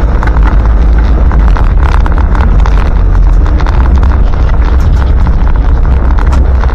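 Land Rover Santana Series 3's 2.25-litre diesel engine running under way, heard from inside the cab: a loud, steady low drone with dense, rapid clatter over it.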